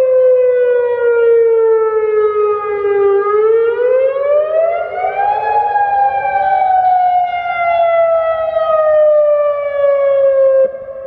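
Federal Signal Modulator 6048 outdoor warning siren sounding its wail. The loud tone falls slowly in pitch for about three seconds, climbs for about two seconds, then falls slowly again. Its level drops suddenly about a second before the end while the tone carries on more faintly.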